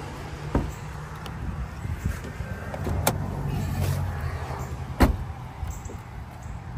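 Dodge Challenger's driver door opened and the hood release pulled, then the door shut: a click about half a second in, a sharp click about three seconds in, and the door closing with a thud about five seconds in, the loudest sound. A low steady hum runs underneath.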